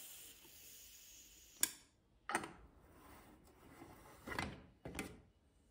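Stainless-steel pressure cooker being opened once its pressure has dropped: the last of a steam hiss fades out, then come a few faint clicks and scrapes as the lid is twisted loose, with a sharp click about a second and a half in.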